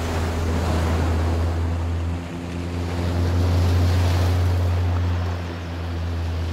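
Water rushing and spraying as a Chevrolet Silverado ZR2 pickup ploughs through a shallow stream crossing, over a steady low hum.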